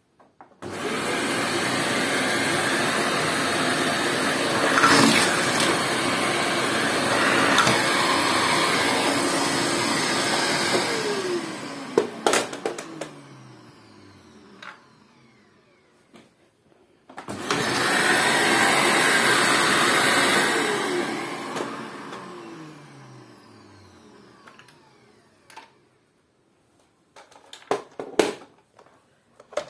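Juro-Pro Allegra-A vacuum cleaner switched on and running for about eleven seconds, then switched off, its motor whining down in pitch. It is switched on again for a few seconds and winds down once more. There are sharp clicks as it is switched off and a few knocks near the end.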